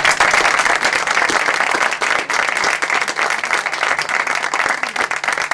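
Audience applauding: many people clapping steadily together.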